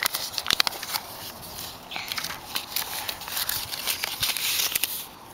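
Rustling and crackling of a paper greeting card being handled, with irregular sharp clicks.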